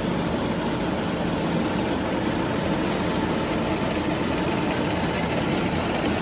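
Workshop machinery running steadily, a continuous low mechanical drone.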